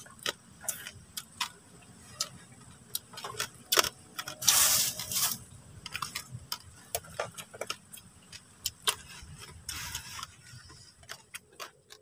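Close-up eating sounds of fried quail eaten by hand: irregular wet clicks of chewing and lip-smacking, with a short hissing noise about four and a half seconds in and a smaller one near ten seconds.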